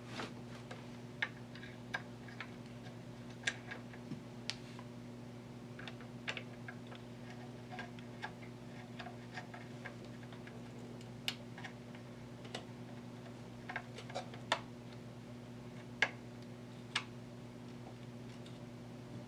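Small clicks and taps at irregular intervals, about one or two a second, as a glass fuse and a fuse-holder end cap are handled and fitted, over a steady low hum.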